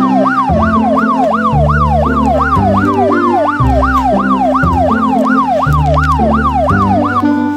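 Electronic police-style siren wailing, a fast rising-and-falling sweep about three times a second, over background music with a steady bass line. The siren cuts off near the end and the music carries on.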